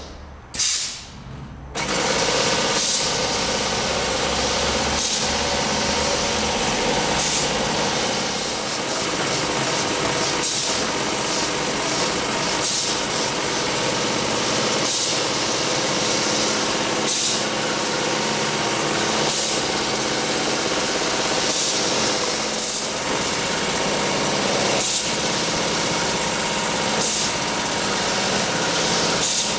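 Wilcom AutoTuft robotic tufting machine running, a steady mechanical hum and chatter like a sewing machine, with a sharper hiss recurring about every two seconds. It cuts out briefly about a second in, then runs on.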